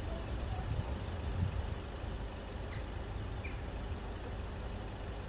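Steady low rumble of road traffic, with two faint high chirps about three seconds in.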